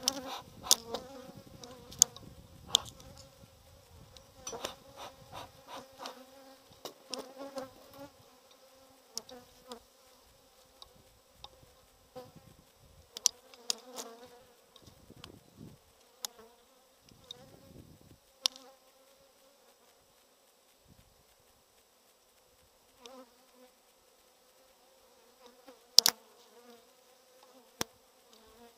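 A colony of honeybees buzzing over an open hive in a steady hum, the bees unsettled. Sharp clicks and knocks come from the hive tool and the wooden frames being worked, with a loud crack near the end.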